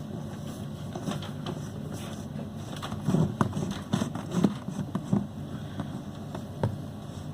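Irregular clicks and knocks of the new spin-tub buffer being tightened onto a semi-automatic washing machine's spin drum, the knocks thickest in the middle, over a steady low hum.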